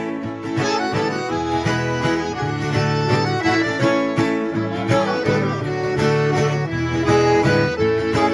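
Instrumental break in a Brazilian sertanejo song: accordion and plucked guitar playing together between sung verses.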